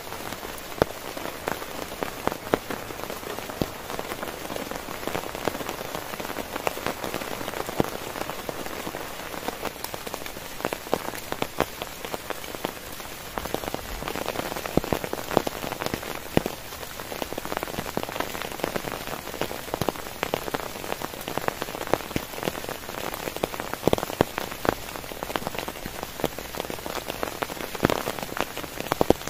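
Heavy rain falling steadily on a tent, a constant hiss with many sharp, separate drop hits on the fabric.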